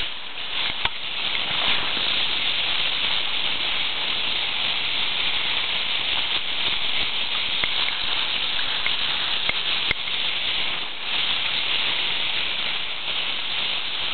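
Steady hiss of wind and sea water with a few faint ticks.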